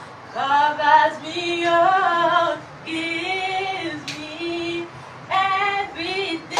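Women and children singing a worship chorus together without instruments, in held notes and short phrases with brief breaks between them.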